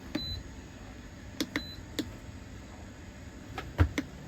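Button presses on the control panel of a Bouge RV portable compressor refrigerator: a string of sharp clicks, two of them followed by a short high beep. A louder knock with a low thump comes near the end.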